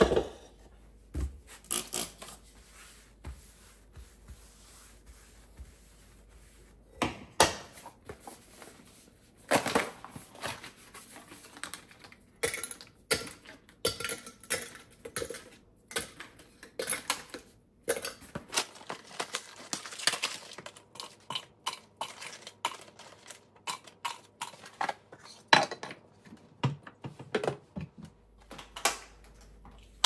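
Kitchen countertop handling: a fruit bowl set down at the start, then a long run of light clicks and clinks as coffee capsules are dropped one by one into a glass jar.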